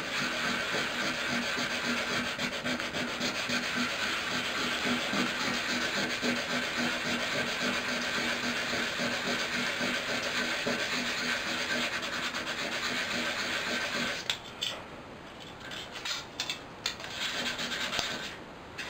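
Emery cloth rubbed rapidly back and forth over a small flat piece of aluminium drinks-can metal: a steady scratching that dulls the can's shiny surface and thins the metal for a pinhole. The rubbing stops about three-quarters of the way through, leaving a few short scrapes and a last brief spell of rubbing near the end.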